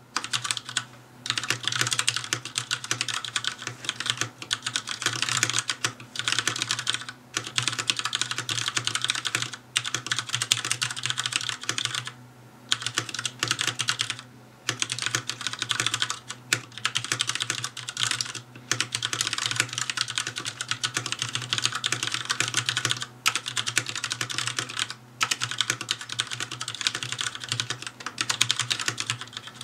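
Continuous typing on a Filco Majestouch-2 tenkeyless mechanical keyboard with Cherry MX Black linear switches: rapid keystrokes in runs of a few seconds, broken by brief pauses.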